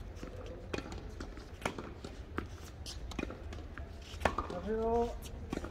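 Tennis balls being struck with rackets and bouncing on a hard court during a rally: a series of sharp knocks a second or so apart. A short rising voice call comes just after the loudest hit, near the end.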